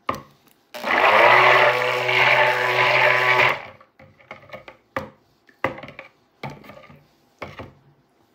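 Stick (immersion) blender running in a glass bowl of raw soap batter for about three seconds, blending the oils and coconut-milk lye solution. It cuts off and is followed by four short knocks as the blender and spatula are moved in the bowl.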